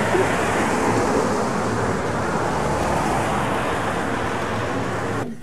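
Steady road traffic noise from a busy multi-lane road, an even wash of passing cars, that cuts off abruptly just before the end.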